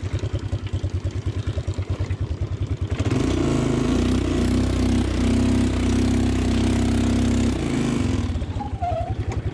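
ATV engine ticking over with a pulsing beat, then given throttle about three seconds in and held at a steady higher speed for roughly five seconds before dropping back to the pulsing idle. It is the quad being driven to pull out of the mud.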